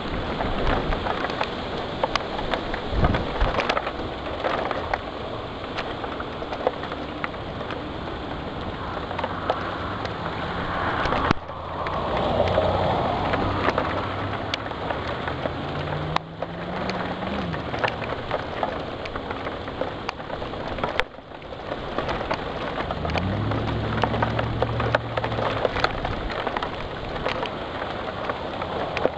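Heavy thunderstorm rain falling steadily, with dense patter of drops striking a nearby surface. Twice a brief low droning hum rises over it, the first climbing in pitch.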